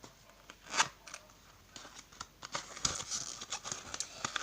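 Handling of new slide sandals and their packaging: a sharp click about a second in, then a busy run of crinkling and ticking toward the end.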